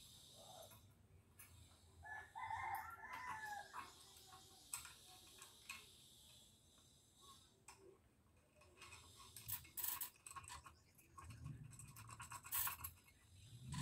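A rooster crows once, about two seconds in. Scattered light clicks and rustles of the metal lamp parts and wires being handled follow.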